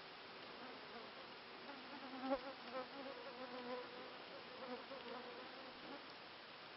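A flying insect buzzing, its pitch wavering up and down as it moves about. It swells loudest about two seconds in and fades out near six seconds.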